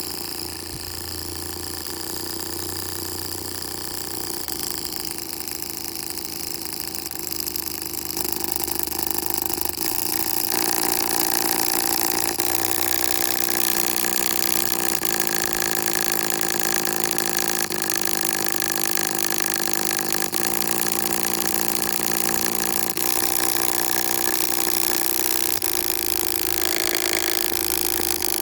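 A motor or engine running steadily, getting louder about ten seconds in, with its pitch shifting in a few steps.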